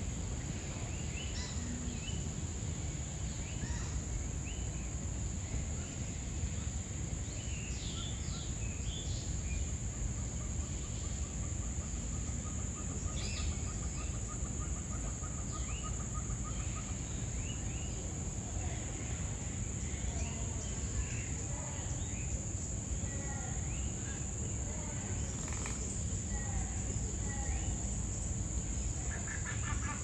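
Various birds chirping and calling, including a steady, evenly repeated low trill for several seconds in the middle, over a constant high insect drone and a low background rumble.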